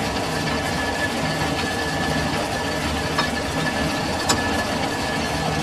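Lathe running steadily with a large multi-groove V-belt pulley spinning in its chuck, with a thin steady whine over the motor and gear noise. Two sharp metallic clicks, about three and four seconds in, come from the tool post being worked with a wrench.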